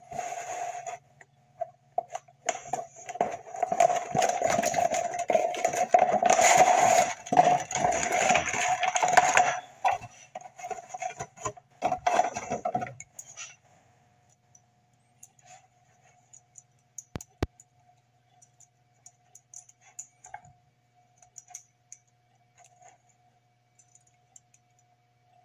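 Cardboard box and packaging being handled and opened: dense rustling and scraping for about the first thirteen seconds, then only faint small clicks and taps as the bobblehead figure is set down and handled.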